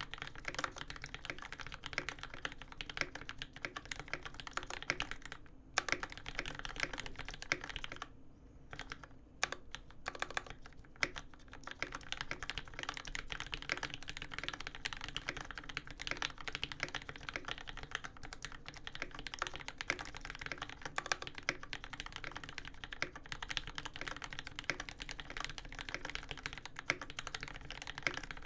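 Continuous fast typing on a custom mechanical keyboard with lubed Cherry Top Tealios v2 linear switches on an aluminium plate, GMK keycaps clacking, with brief pauses about six and eight seconds in.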